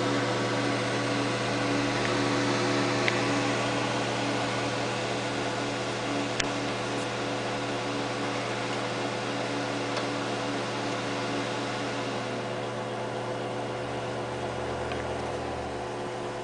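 Computer fans running steadily: the Zalman CNPS9500 CPU cooler's fan and an LED case fan give an even whir with a steady hum, and a few faint ticks.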